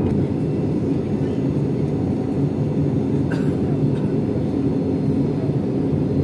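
Airliner cabin noise in flight: a steady low rumble of jet engines and airflow, heard from inside the cabin at a window seat.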